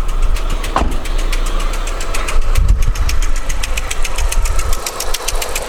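Škoda Octavia 1.8 20-valve turbo four-cylinder engine running, with a fast, even ticking knock that the owner takes for a hydraulic lifter or a broken rocker arm.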